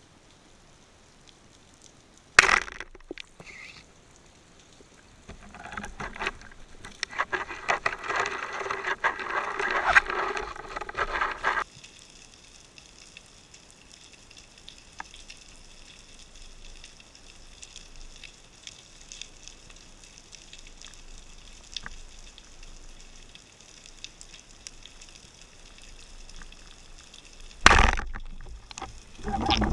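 A band-powered carbon speargun firing underwater, heard through the camera housing as a sharp crack near the end. About two seconds in there is an earlier sharp knock, and from about 5 to 12 s a rushing noise.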